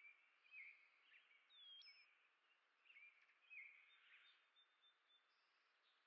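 Faint chirping of small songbirds: a loose series of short chirps, with one higher whistled note about two seconds in, over a light outdoor hiss.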